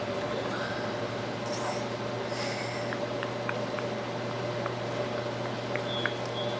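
Steady low hum of room tone, with a few faint small clicks and soft mouth sounds from a baby sucking and chewing on his fingers.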